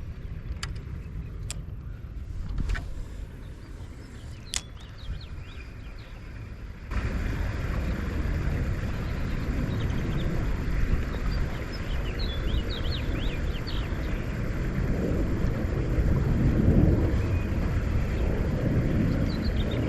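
Low outdoor rumble, like wind on the microphone and traffic noise, that steps up abruptly about seven seconds in and swells near the end. A few sharp clicks sound in the first few seconds, and faint bird chirps come and go later.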